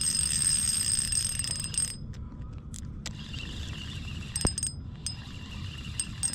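Spinning reel's drag buzzing as a hooked fish pulls line off against it: a steady high buzz for about two seconds that cuts off, then several short bursts as the fish makes brief runs. A single knock about halfway through.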